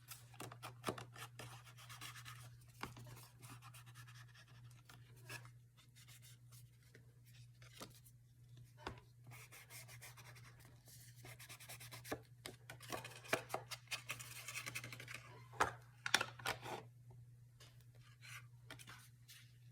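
Paper and craft materials handled on a desk: light scratching, rubbing and small taps, scattered and irregular, over a steady low hum.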